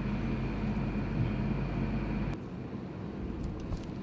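Steady low mechanical hum of background machinery with a faint high whine, which drops off abruptly about two-thirds of the way through to a quieter hum. A few faint light ticks near the end.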